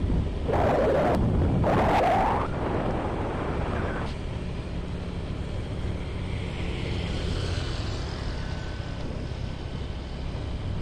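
Road noise from a moving vehicle travelling along a street: a steady low rumble. Two loud rushing bursts of noise in the first couple of seconds, like wind buffeting the microphone.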